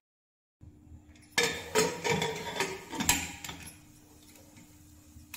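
A pressure cooker lid being fitted and locked shut: about two seconds of metal clanks, knocks and scraping against the pot rim and handles. After that, a steady low hum remains.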